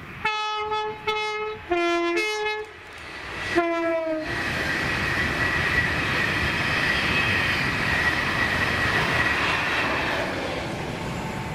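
Class 390 Pendolino electric train sounding its horn in five short blasts on two pitches, then running past at speed with a loud rush of wheels on rail and a steady high whine that eases off near the end.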